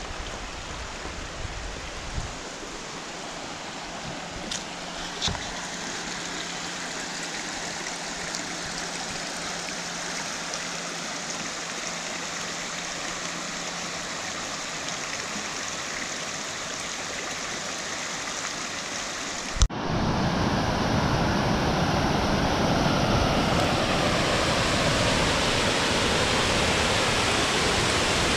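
Steady rushing of a rocky creek flowing over stones and small cascades. About twenty seconds in, after a sharp click, it turns louder and fuller: water pouring over a low ledge waterfall.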